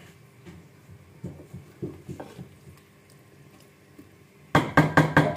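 Wooden spatula stirring a watery potato and aubergine curry in a pan, soft and quiet; near the end, a quick run of loud knocks and clatter against the pan.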